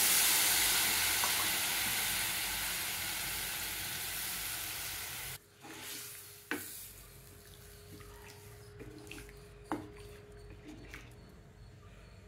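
Sizzling as tamarind water hits hot frying onion-tomato masala in a pan, fading over about five seconds and then stopping suddenly. After that the curry is quieter, with a couple of sharp knocks of a wooden spatula against the pan.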